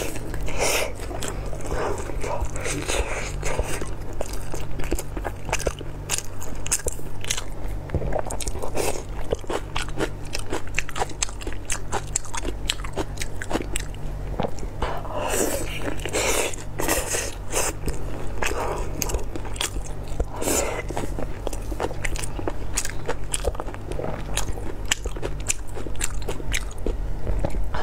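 Close-miked biting and chewing of a rice-filled blood sausage, with many quick mouth clicks throughout and a steady low hum underneath.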